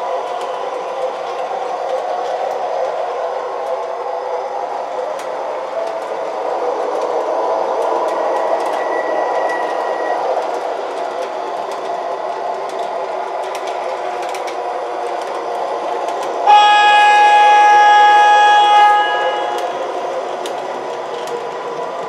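MTH Proto-Sound 3 O-gauge PCC streetcar models running around a three-rail loop, a steady running noise with faint clicks. About three-quarters of the way through, one car sounds its horn, a chord of several tones held for about two seconds: the automatic blow-the-horn command from the DCC controller as the car passes the detector point.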